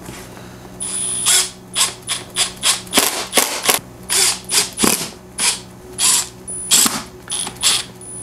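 Cordless drill/driver run in a quick string of short trigger pulls, starting about a second in, each burst with a brief high whine.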